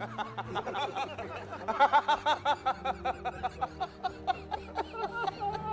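Men laughing hard in a quick run of short 'ha' pulses, over low, steady background music.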